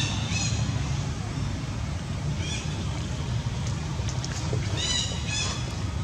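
Short high-pitched animal squeaks, each rising then falling, come in small bunches near the start, about two and a half seconds in and around five seconds in. A steady low rumble of background noise runs under them.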